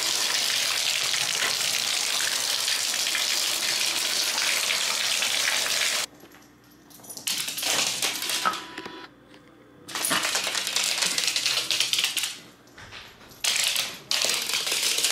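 Bathtub tap running full, water pouring onto the bottom of a nearly empty tub: a steady rushing hiss that cuts off abruptly about six seconds in. Then comes an uneven run of short clicking, rattling bursts with quiet gaps between them.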